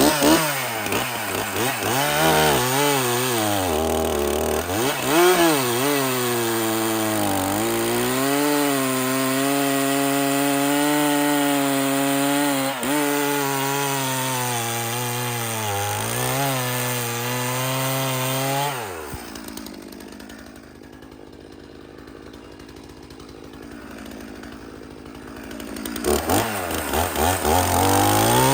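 Stihl chainsaw running at high revs and cutting seasoned oak, its engine pitch dipping and recovering as the chain loads in the wood. About two-thirds of the way through it winds down to a much quieter idle, then revs up again near the end.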